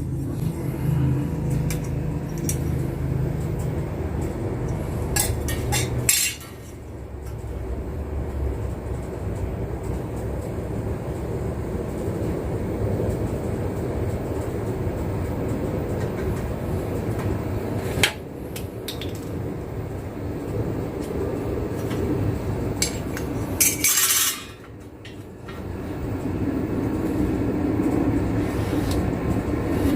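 Galvanized iron sheet being handled and worked, metal clanking and scraping, with a few sharper knocks.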